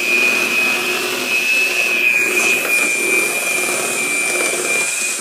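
Electric hand mixer running steadily with a high motor whine, its beaters churning muffin batter in a stainless-steel bowl.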